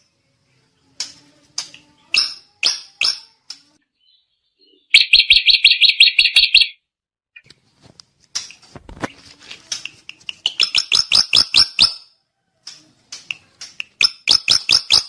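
A drongo singing: bouts of rapid, evenly repeated high notes with short pauses between them, the loudest a fast rattling run about five seconds in.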